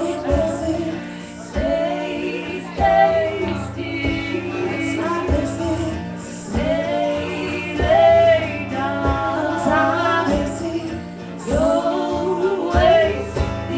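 Live band music: female voices singing long, bending notes over instrumental accompaniment with a steady bass.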